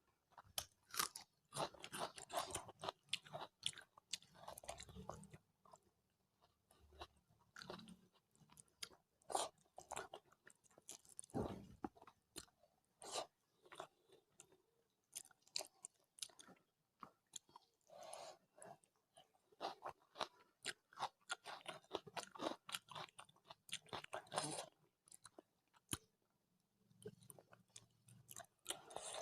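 Close-miked chewing of rice with mutton and fish curry: irregular runs of short, sharp mouth clicks, smacks and crunches, with brief pauses between mouthfuls.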